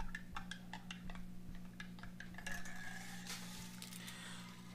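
A spoon stirring instant coffee in a cup of hot water, clinking lightly against the side in a quick run of clinks through about the first two seconds, then fewer and fainter.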